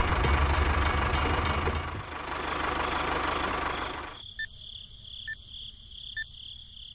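A small motor running with a rattling drone. About four seconds in it cuts off abruptly, leaving a steady high whine with a short tick about once a second.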